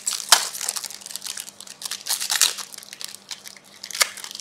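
Crinkling and crackling of a trading-card pack wrapper as the pack is opened and the cards handled: an irregular run of crackles and clicks, with a sharper click about four seconds in.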